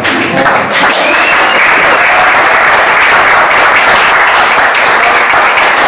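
Audience of seated diners applauding: a dense clapping that swells in the first second, holds, and tapers off near the end.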